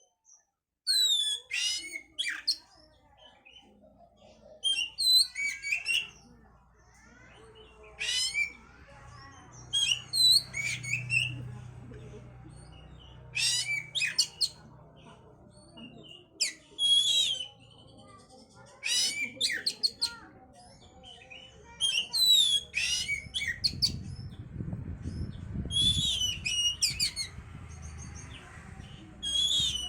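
Oriental magpie-robin (kacer) singing loud, short bursts of rapid, sweeping high notes, a phrase every two to three seconds. This is the lure song keepers play to stir a kept magpie-robin into breeding condition.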